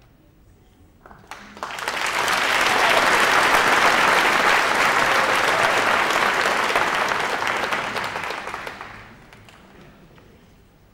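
Audience applauding: a few scattered claps about a second in swell into full, steady applause, which fades away after about eight seconds.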